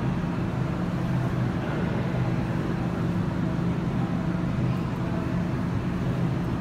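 Steady low mechanical hum with a constant droning tone and an even rumble underneath.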